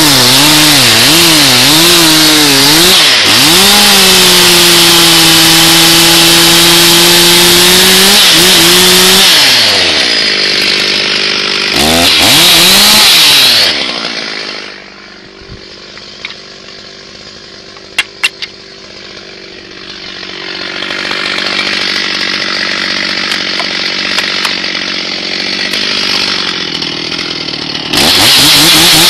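Stihl MS361 two-stroke chainsaw running at full throttle, its pitch wavering and then holding steady as it cuts wood. About ten seconds in the throttle is released and blipped once, and the saw drops to a low idle with a few sharp knocks. Near the end it is revved back up to full throttle.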